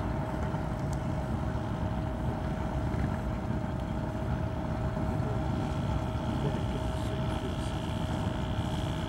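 Small moped engine running steadily as the moped rides slowly along, a steady high hum over a low rumble.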